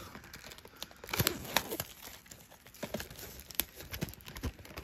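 Plastic shrink-wrap on a Pokémon card Elite Trainer Box being peeled and torn open, giving irregular crinkles and sharp crackles.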